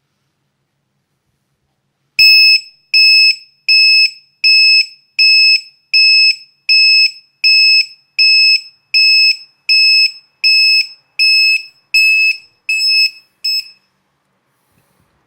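Battery monitor's piezo buzzer sounding its low-voltage alarm: a series of loud, shrill beeps, about four every three seconds, that turn shorter and uneven near the end and then stop.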